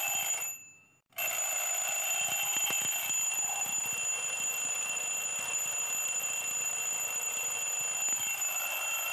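Twin-bell alarm clock ringing, its hammer rattling rapidly between the two bells: loud enough to wake anyone. It breaks off for a moment about a second in, then rings on steadily.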